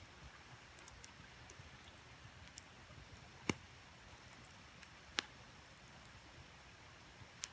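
Wood campfire crackling: scattered sharp pops, the loudest about halfway through, over a faint steady rush of creek water.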